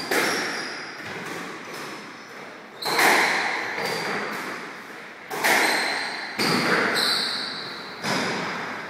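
Squash rally: the ball cracking off rackets and the court walls, each sharp hit echoing round the court, with short high squeaks between the hits.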